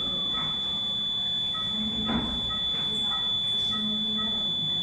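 NICU equipment sounding: a loud steady high-pitched electronic tone, with a run of short repeated alarm beeps over it. Two short noisy breaths, about half a second and two seconds in, fit the newborn's sudden open-mouthed gasping.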